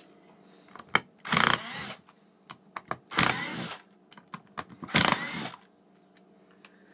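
Hammerhead HCID120 12-volt cordless impact driver running in reverse three times, in short bursts about two seconds apart, backing screws out of a wood block. Small clicks and handling knocks come between the bursts.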